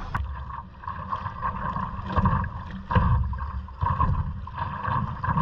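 Water splashing and lapping against a stand-up paddleboard as it is paddled, heard close up from a camera on the board's deck, with louder surges roughly every second from about two seconds in and wind buffeting the microphone.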